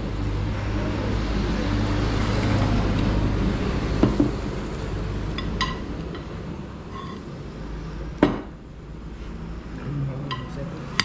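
A steady low rumble of passing road traffic that swells and then eases off, with a few scattered clinks of plates and cutlery and a sharp knock about eight seconds in.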